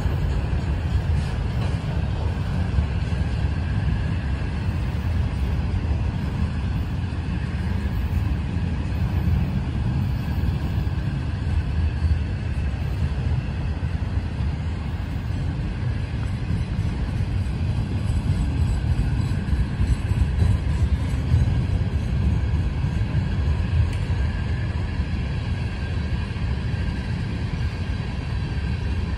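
Freight cars of a passing BNSF mixed freight train rolling by: a steady low rumble of steel wheels on the rails.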